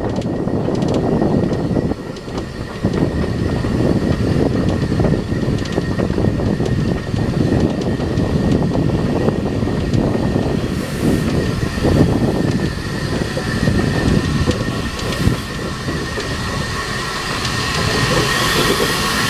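Narrow-gauge steam locomotive running along, heard from its cab: a steady rumble of wheels on rail under heavy wind buffeting on the microphone. A thin high squeal, typical of wheel flanges on a curve, runs through and grows stronger in the last few seconds.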